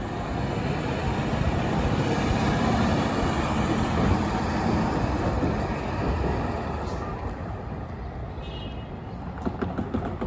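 Caltrain Stadler KISS electric multiple unit running on the rails as it pulls out of the station, a steady rumble of wheels and cars that is loudest in the first half and fades away after about six seconds.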